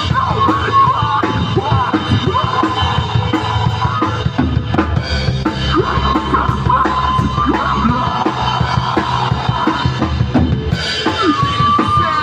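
Rock band playing an instrumental passage: a drum kit with bass drum and snare keeping a steady beat under a sustained lead melody that bends in pitch.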